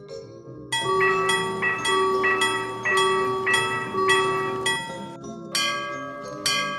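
Railroad crossing warning bells ringing: a fast run of strikes about three a second, then after a brief gap a different crossing bell with slower strikes about once a second.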